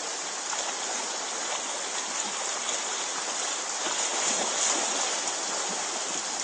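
Shallow river rushing steadily over rocks, with a dog wading and splashing through the water.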